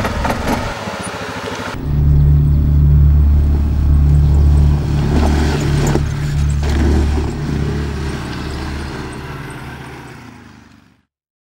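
Quad bike (ATV) engine running as the ATV drives over rough dirt, a steady low note that dips briefly a couple of times, then fades out near the end.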